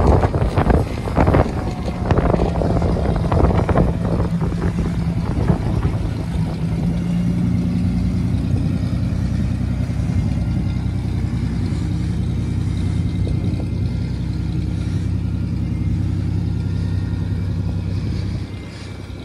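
Antique fire truck engine running steadily at low speed as the truck rolls slowly by, a low even hum that fades down near the end. Wind buffets the microphone during the first few seconds.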